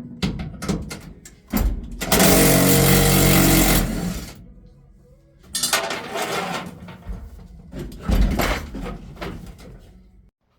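Several bursts of a handheld power tool cutting into the truck's sheet metal. The longest and loudest comes about two seconds in and lasts about two seconds. Two shorter runs follow, with a few knocks of metal in between.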